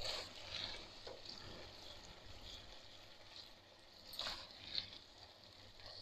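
Faint sizzle of onion, tomato and ginger-garlic masala frying in oil, with soft swishes of a silicone spatula stirring through the wet mixture at the start and again about four seconds in.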